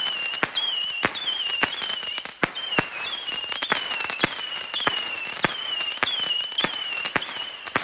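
A firework firing whistling shots in quick succession, about two a second. Each shot is a sharp pop followed by a short, wavering, high whistle.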